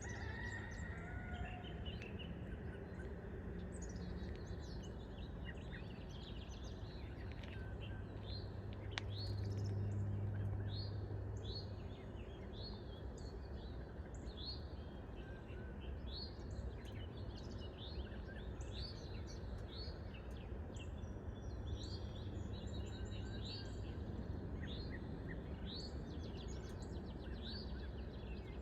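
Small songbirds chirping, many short rising chirps overlapping, over a steady low background rumble that swells for a few seconds about a third of the way in.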